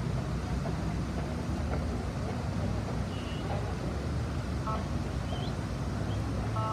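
Busy city street traffic: a steady rumble of cars and other vehicles passing, with a few faint short chirps above it.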